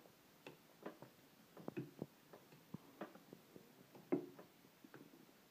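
Metal teaspoon stirring tea in a ceramic mug, clinking faintly and irregularly against the inside of the mug.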